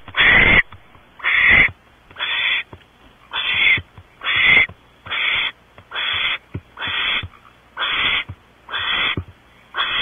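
Barn owl giving a long run of rasping, hissing screeches, each about half a second long, repeated roughly once a second.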